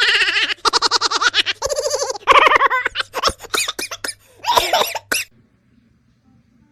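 A person laughing in quick bursts of giggles, stopping about five seconds in.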